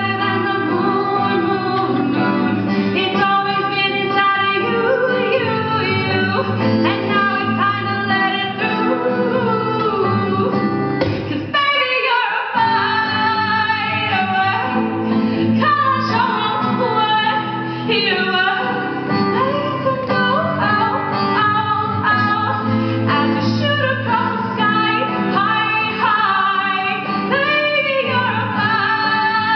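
A woman singing live with her own strummed acoustic guitar accompaniment, the accompaniment dropping out for a moment about twelve seconds in.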